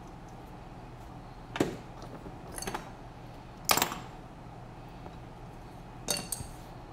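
Small metal tools and parts clinking as they are set down and handled on a workbench: one sharp clink about a second and a half in, a few softer ones near three seconds, the loudest near four seconds, and two close together near the end.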